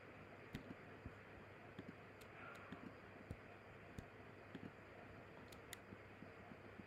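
Near silence with a faint hum and about a dozen faint, irregularly spaced clicks from a computer being operated.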